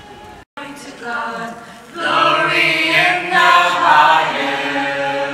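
A choir singing with long held notes, swelling louder about two seconds in. Before that, the sound cuts out briefly about half a second in.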